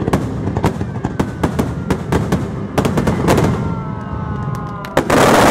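Aerial fireworks shells and ground mines bursting in rapid succession, many sharp bangs one after another, with a loud dense crackling rush near the end.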